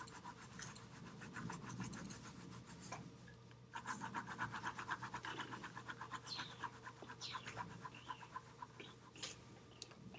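Graphite pencil scratching on paper in rapid, even back-and-forth shading strokes. The strokes get busier about four seconds in, with a few lighter strokes before and after.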